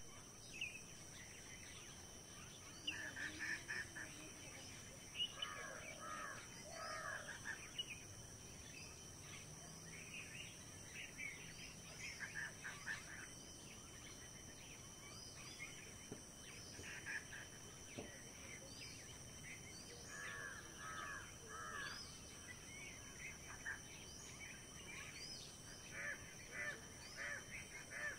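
Wild birds chirping and calling in a rural morning chorus, some in quick runs of repeated notes, over a steady high-pitched hum.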